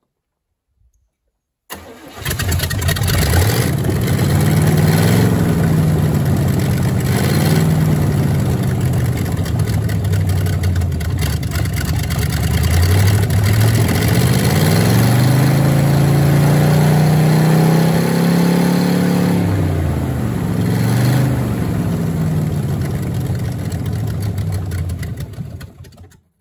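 V8 engine of a 1937 Dodge hot rod truck running at high revs, its pitch rising and falling repeatedly as the throttle is worked by hand at the Quadrajet carburetor. It comes in suddenly about two seconds in and stops just before the end. It is held up on the throttle because it won't stay idling, which the owner suspects comes from a fuel-feed or carburetor-jetting problem.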